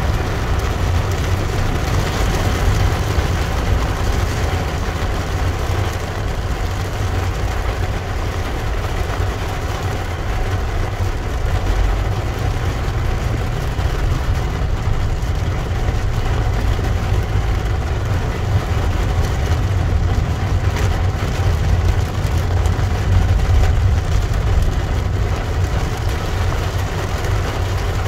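Heavy rain on a car's roof and windshield, heard from inside the cabin over the steady low rumble of the car driving on a wet road.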